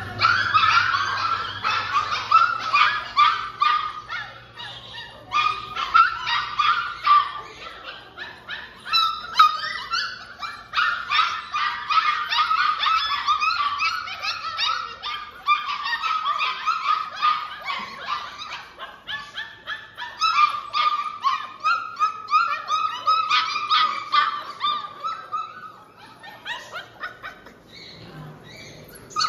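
Several puppies yipping and whining at once, a busy stream of short, high-pitched overlapping calls with brief pauses, thinning out near the end.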